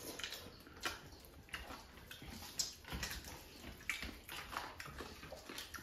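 Wet eating sounds of rice and curry eaten by hand from steel plates: fingers mashing and scooping the food, and chewing. They come as irregular soft smacks and clicks, several a second at most.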